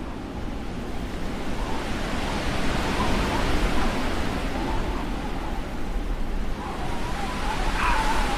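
Blizzard wind blowing in gusts: a steady rush that swells and eases, with a thin whistling tone that grows stronger near the end.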